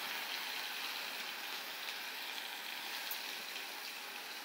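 Hot oil sizzling steadily in a saucepan, frying onion with a freshly added green ginger-garlic and chilli paste: an even hiss with a faint crackle now and then.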